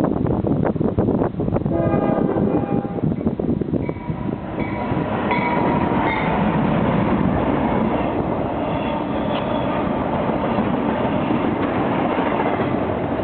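Freight train passing close by: a run of sharp clicks, then the horn sounds a chord for about two seconds. From about four seconds in, the GE ES44DC locomotives and double-stack cars go by with a steady heavy rumble of wheels on rail.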